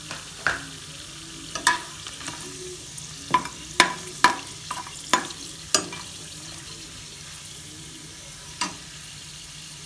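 A metal spatula scraping and clinking against a pressure-cooker pot as whole spices are stirred and fried in hot oil, over a low steady sizzle. The scrapes come irregularly, most in the first six seconds, with one more near the end.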